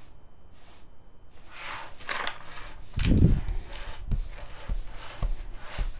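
Angle broom sweeping a hard floor in short scratchy bristle strokes, about two a second, then sweeping debris into a plastic dustpan. There is a dull thump about three seconds in.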